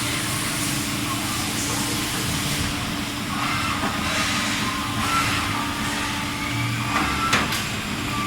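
TRAUB TNK 36 CNC lathe running: a steady mechanical hum with hiss, a faint rising whine through the middle and a sharp click about seven seconds in.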